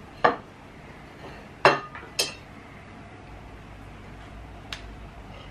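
Knife and fork clinking against ceramic plates while eating: three sharp clinks in the first two and a half seconds and a lighter one near the end.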